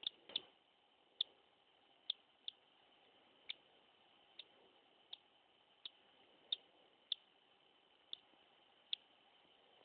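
Baby cockatiel chick peeping: short, high, faint cheeps at irregular intervals, roughly one a second.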